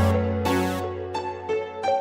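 Instrumental ambient electronic music: held keyboard and synthesizer notes over a low bass note, with a bright hit at the start and another about half a second in.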